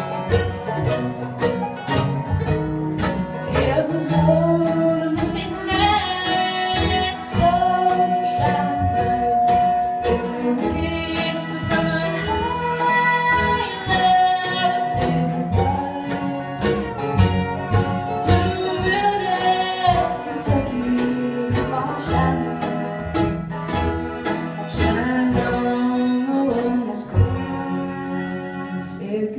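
Live acoustic bluegrass band playing: fiddles, banjo, mandolin, acoustic guitar and upright bass, with long held fiddle notes over the driving strummed and picked rhythm.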